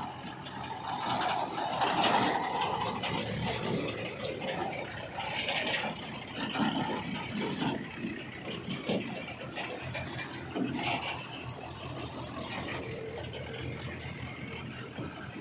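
Diesel earthmoving machinery running steadily, with irregular metallic rattling and clanking over the engine note.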